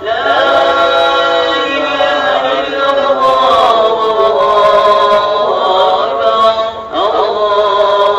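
A man's voice chanting a slow, melodic line in long, gliding phrases, with a short break about seven seconds in.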